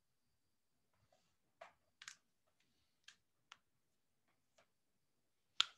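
About half a dozen faint, irregularly spaced sharp clicks, the last one near the end the loudest.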